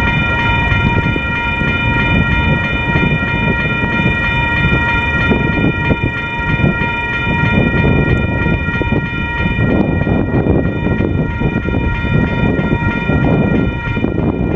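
Electronic crossing bells (WCH Type 3) ringing steadily over the low rumble of a slow freight train crossing the road. A set of EMD SD70ACe diesel locomotives passes in the second half, and the rumble grows.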